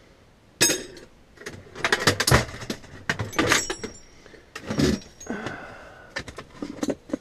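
Metal hand tools clinking and clattering, with the steel drawers of a tool chest being shut and slid open: a string of separate knocks and clicks, some with a short metallic ring.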